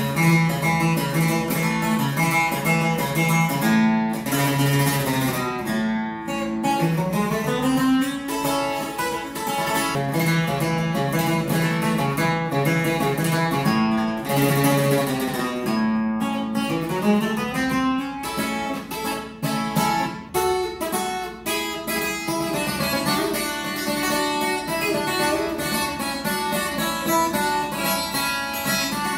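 Takamine Pro Series 12-string acoustic guitar played unplugged: a strummed and picked accompaniment with moving bass runs.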